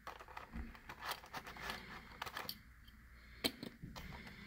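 Faint handling of a carded 1/64 diecast car and its plastic-and-cardboard blister packaging on a tabletop: light rustling with a few small clicks and taps, the sharpest about three and a half seconds in.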